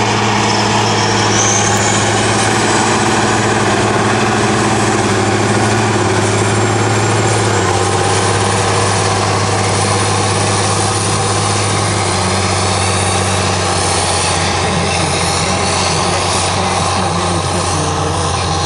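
Caterpillar Challenger MT865B tracked tractor pulling a wide tillage cultivator through soil, its diesel engine running steadily under heavy load. The engine's low drone drops slightly in pitch twice.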